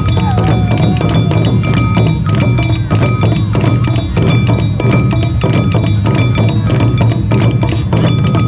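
Live Awa Odori festival music: a troupe's taiko drums beating a fast, driving rhythm, with a metal hand gong (kane) striking and ringing over them.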